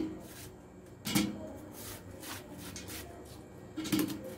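Kitchen knife cutting a watermelon wedge into chunks over a stainless steel pot, with two short knocks as pieces fall into the pot, about a second in and near the end.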